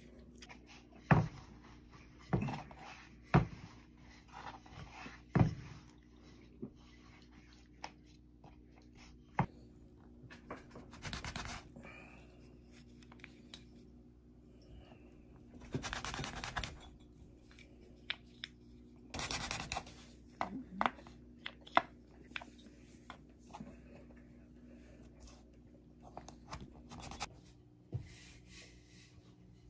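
Objects being handled by hand: several sharp knocks in the first few seconds, then scattered light clicks and a few short stretches of rubbing or scraping, over a steady low hum.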